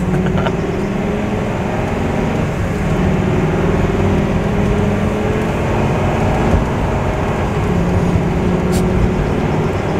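Class C motorhome driving on the road: a steady engine drone with road noise that holds even throughout.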